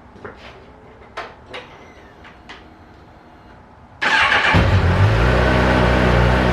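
A few light clicks, then about four seconds in the 2019 Honda CB1000R's inline-four is started: a brief burst of starter cranking, and the engine catches at once and settles into a steady idle. This is the test start on a freshly fitted battery, which spins the engine fast enough to fire where the old one could not.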